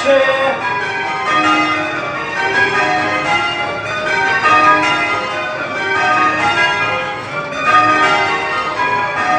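A ring of eight church bells in change ringing, rung in spliced methods. The bells strike one after another in a steady, even stream, each note ringing on under the next.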